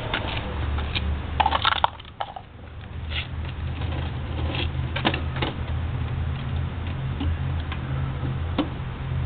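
Footsteps on concrete and a scatter of sharp clicks and knocks as a Toro S200 snowblower is handled and tipped down onto its front, over a steady low rumble. The engine is not yet running.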